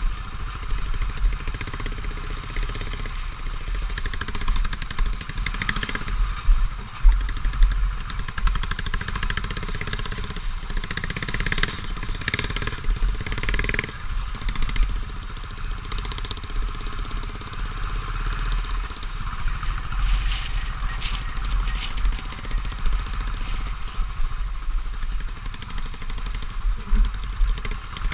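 Royal Enfield motorcycle engine running, its loudness rising and falling.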